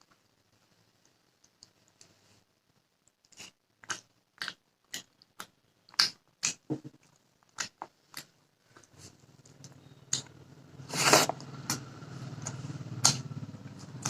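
Close-up eating sounds: a person biting and chewing a meal of fish curry, rice and raw onion, with a run of sharp crunches from a few seconds in. A steady low hum comes in about nine seconds in.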